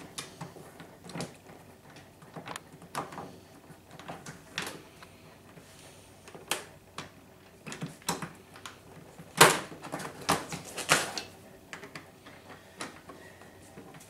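Scattered clicks and knocks of the plastic battery-compartment door being fitted back onto an inverter generator's housing, with tools being handled; the loudest knocks come a little past halfway.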